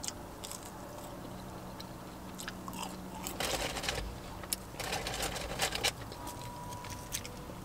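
A person biting into and chewing crunchy fried fast food, with the loudest crunches a little past halfway. A faint steady low hum runs underneath.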